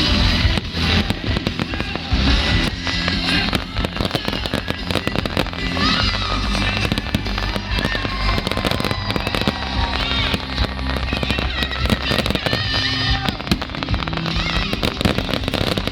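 Fireworks going off in a dense, continuous barrage of bangs and crackles, with music playing underneath and voices in the crowd.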